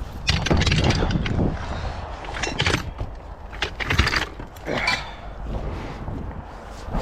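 Irregular scrapes, clatters and knocks of equipment being handled and moved, several separate sounds a second or so apart.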